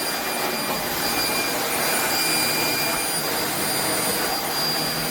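Eureka Flash corded stick vacuum running: a steady rush of air with a high, steady motor whine.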